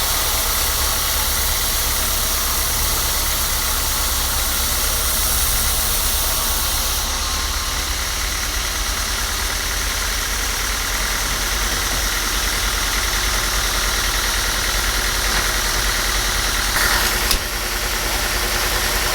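A motor-driven machine running steadily with a low rumble and a constant drone. The hiss in its upper range drops away about a third of the way through, and there is a brief louder burst near the end.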